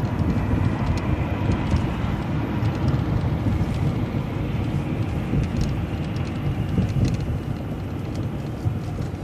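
Steady rumble of engine and road noise from a moving vehicle, heard from inside.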